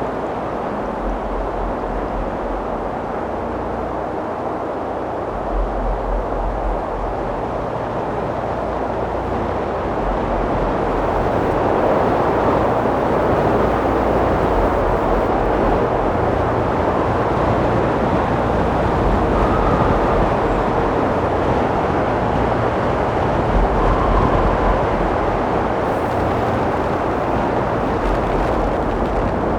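Strong wind blowing in gusts, with low rumbles of wind buffeting the microphone; the rush grows louder about ten seconds in.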